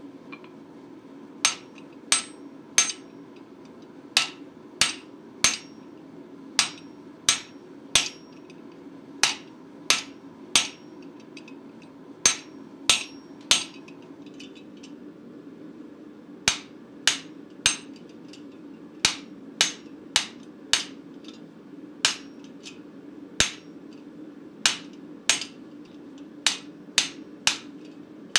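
Hand hammer striking the top die of a guillotine tool on the anvil, forging a 5/16-inch tenon on a hot steel bar. The strikes are sharp and ringing, in runs of about three with short pauses between them and a longer pause about halfway. A steady low hum runs underneath.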